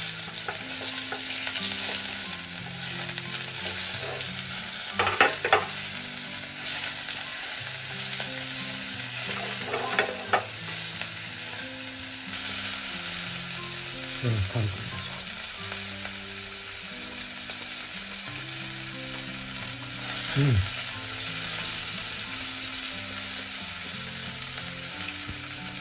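Pieces of venison sizzling as they fry over heat, a steady crackling hiss, with a few short clicks about five and ten seconds in.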